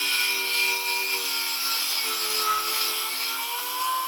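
Small high-speed power grinder running steadily as it grinds away rust on a kei truck's rusted-through steel body panel. Its whine sags in pitch about halfway through as it bites under load, then rises back near the end.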